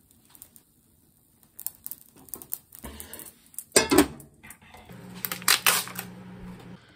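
Metal frying-pan lid set down onto the pan with a clatter about four seconds in, after a few small taps and clicks. Then plastic food packaging crinkles over a low steady hum.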